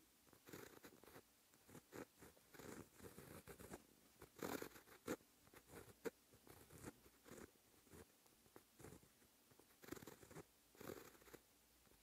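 Fine-tipped pen writing Japanese characters on paper: faint, short scratching strokes in quick, irregular succession, each stroke of a character a separate scratch.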